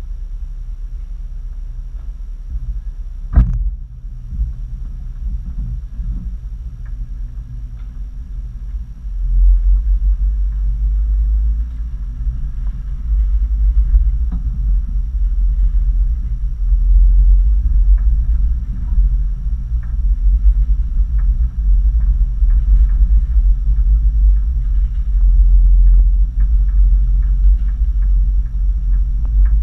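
Low rumble of an off-road vehicle on a dirt trail, picked up by a camera mounted on the vehicle, growing louder about nine seconds in as the vehicle drives off. A single sharp knock about three seconds in.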